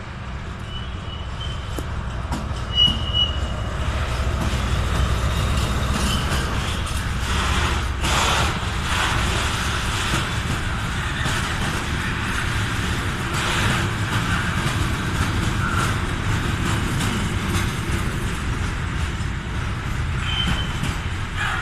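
A container freight train pulling out at slow speed. The locomotive passes close by about three seconds in, then the container wagons roll past with a steady rumble and clanks from the wheels and couplings. Brief high wheel squeals come near the start and again near the end.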